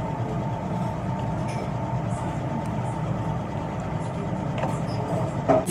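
Steady low hum of a ramen shop's room noise, such as ventilation and kitchen equipment, with a brief louder sound just before the end.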